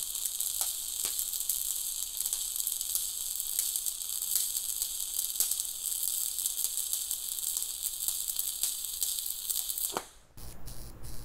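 Shielded metal arc (stick) welding with a 1/8-inch 7018 electrode, run overhead: the arc burns with a steady crackling sizzle and small pops, then cuts off suddenly near the end.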